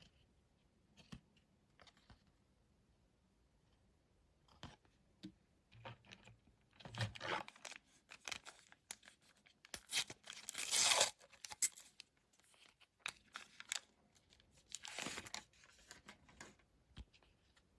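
Thin paper trading cards and their paper-like foil packet being handled. Intermittent rustling, crinkling and tearing, with the longest tearing rustle about ten seconds in and smaller crinkles around it.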